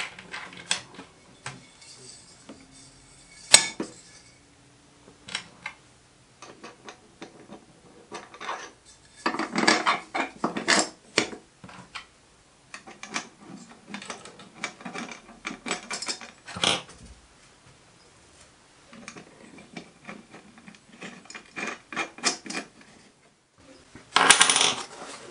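Small metal hardware (washers, bolts and an adjustable spanner) clinking and clattering as it is handled on a wooden workbench, in irregular sharp clicks with a few louder clusters and a longer rattle near the end.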